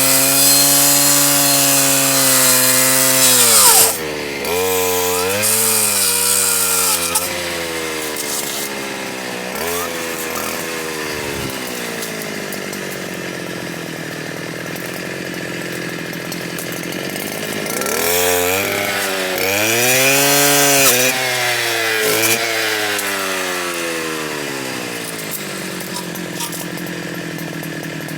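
Stihl KA 120 R driving a circular saw blade fitted with chainsaw teeth, cutting: its whine falls in pitch as the blade loads up in the cut and rises again as it frees, several times, with the longest, deepest drop a little past halfway.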